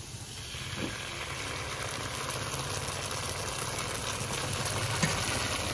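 Sliced onions, cashews and dried red chillies frying in oil in a metal pan: a steady sizzle that grows slowly louder as tomato sauce goes in, with a couple of faint clicks.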